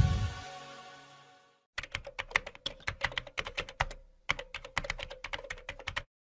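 Electronic music fading out over the first second, then a typing sound effect: rapid key clicks with a short break about four seconds in, stopping just before the end.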